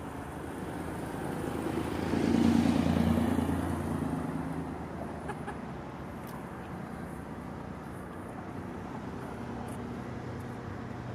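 A motor passing by: a low rumble with a steady hum swells to a peak about two to three seconds in, then fades back to a steady background rumble.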